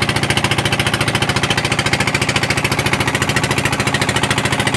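A fishing boat's engine running steadily at speed under way, a loud, rapid, even pulsing.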